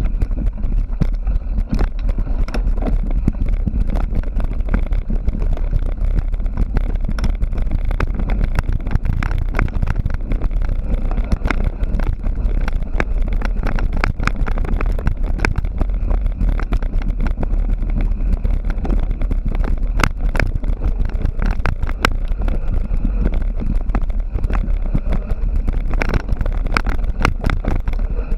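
Mountain bike ridden hard on a trail: continuous rattling and clattering of the bike, with a steady low wind rumble on the camera's microphone.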